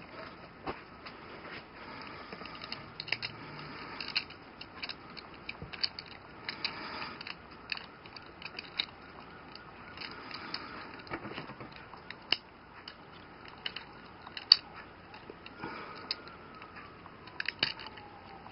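Irregular small plastic clicks and rattles as hands work the jointed parts of a Transformers Henkei Red Alert action figure, prying its feet out on stiff new joints. One sharper snap about two thirds of the way in stands out.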